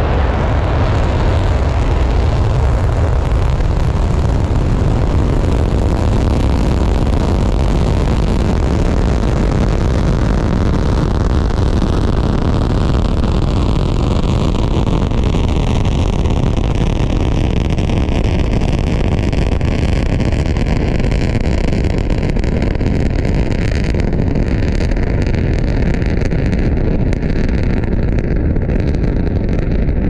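Falcon 9 rocket's nine Merlin engines at liftoff and climb-out: a loud, steady roar, strongest in the deep bass. A hollow sweep glides slowly down in pitch as the rocket climbs, and the highest part of the sound fades toward the end.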